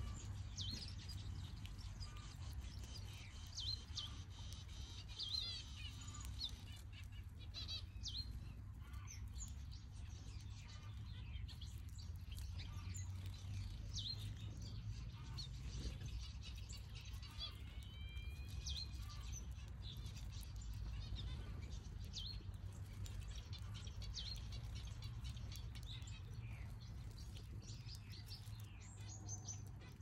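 Mixed aviary finches chirping: many short high calls and a few gliding notes, scattered irregularly, over a steady low rumble.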